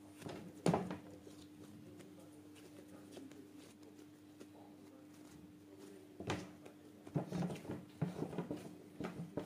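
Bread-flour pizza dough being kneaded and shaped by hand on a silicone baking mat: soft slaps and squishes of the dough against the mat, a stronger one about a second in and a quick run of them over the last three seconds. A faint steady hum lies underneath.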